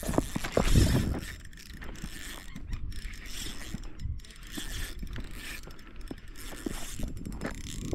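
Fishing reel working during a fight with a hooked fish: a run of fast mechanical clicking and whirring from the reel's gears and drag ratchet as line is worked against a hard-pulling fish.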